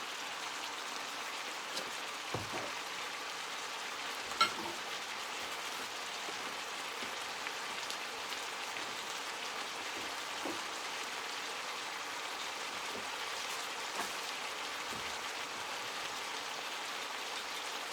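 Seasoned chicken pieces frying in a pan, a steady sizzle, with a few light clicks now and then, the sharpest about four seconds in.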